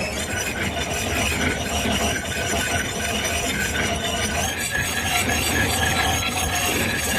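Layered horror sound design: a dense, steady grinding and rumbling metallic texture with faint high sustained tones running through it.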